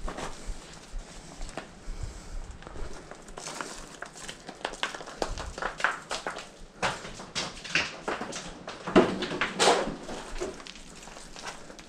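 Irregular scuffs, taps and scrapes of someone clambering over rock inside a small cave, thickest in a louder cluster of scrapes about nine to ten seconds in.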